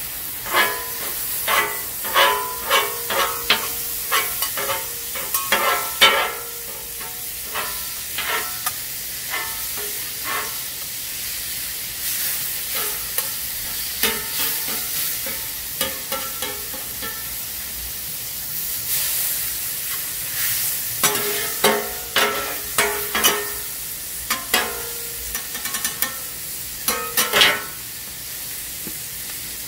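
Ground beef sizzling on a steel flat-top griddle while two metal spatulas chop and scrape it apart, clattering against the steel. The strikes come in quick runs through the first several seconds and again about two-thirds of the way through, over a steady frying hiss.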